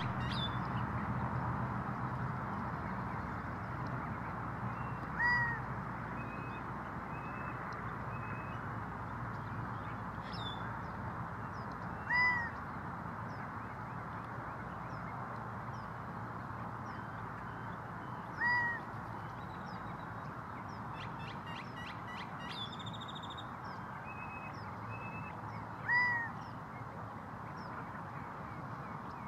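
Male Gambel's quail calling: four loud single-note calls, each briefly rising and falling in pitch, about six or seven seconds apart.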